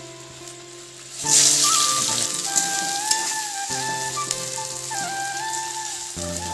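Sliced onions dropped into hot oil in a steel kadai: a loud sizzle breaks out about a second in and carries on as they fry. Background flute music plays underneath.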